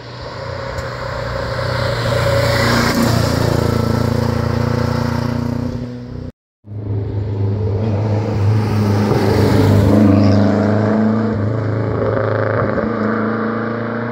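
Historic rally cars under hard acceleration on a mountain stage. One car's engine swells and climbs in pitch as it approaches. After a brief cut about six seconds in, a second car's engine rises, peaks and fades as it passes.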